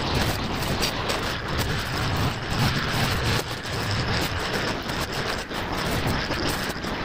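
Brush cutter running some way off, under a rough, rushing noise with a low rumble.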